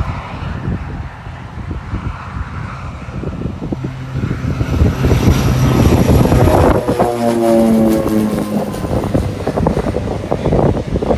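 Propeller aircraft passing close on takeoff: a steady engine drone that grows louder, then slides down in pitch as it goes by, with wind buffeting the microphone.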